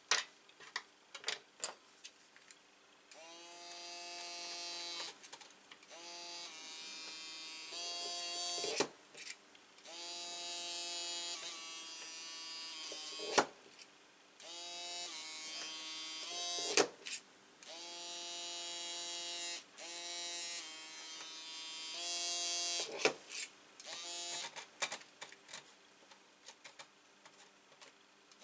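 Small motor of a pen-style cordless electric screwdriver, whirring in about eight runs of one to three seconds each, with sharp clicks and taps between the runs.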